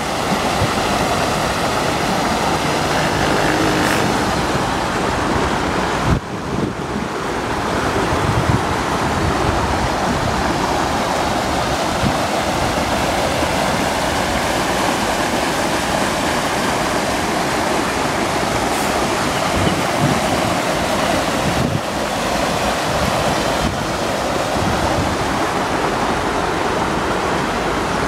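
Muddy floodwater rushing and churning down a stony wadi bed in spate, a steady loud rushing of water.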